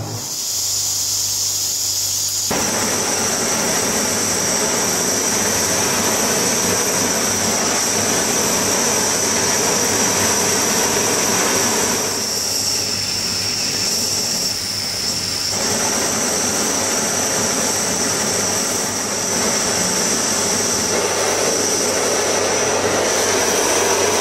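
Brass MAPP-gas hand torch on a hose: gas hisses from the nozzle, then about two and a half seconds in the flame lights and burns steadily with a loud rushing hiss, easing briefly a little past the middle.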